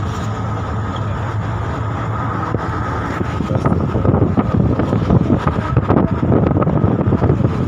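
Steady rumble and hum of a moving bus, heard from inside the cabin. About three and a half seconds in, rough wind buffeting on the microphone joins it and gets louder.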